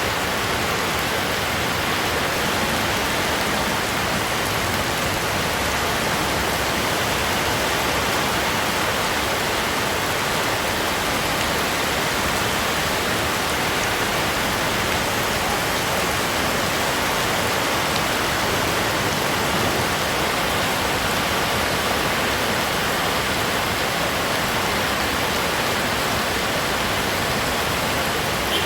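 Heavy rain falling steadily, a loud even hiss with no breaks.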